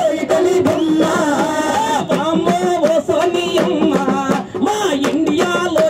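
A man singing a Telugu folk song into a microphone over a PA, with percussion hits under the voice.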